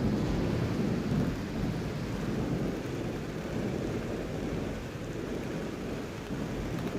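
Rolling thunder rumbling over steady rain. The rumble is loudest in the first second or so, then eases to a lower, continuing roll.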